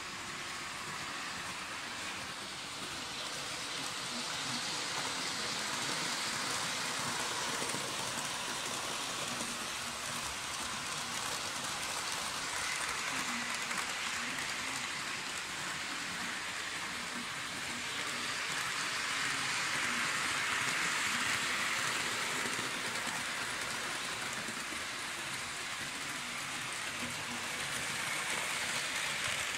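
Märklin model trains running on metal track: a continuous rattling whir of small wheels and electric motors that swells as a train passes close, loudest around twenty seconds in.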